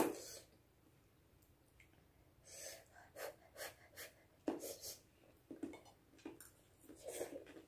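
Two people eating spicy noodles: short sniffs and breaths, mouth sounds and small fork clicks on plates, coming quietly at irregular intervals. The sniffing and breathing go with the chilli heat of the noodles.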